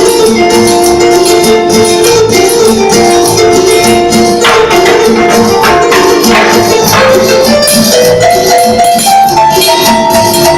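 Electronic keyboard playing a Latin dance tune over its rhythm accompaniment: held chords and a melody that climbs step by step in the last few seconds, over a steady shaker and tambourine beat.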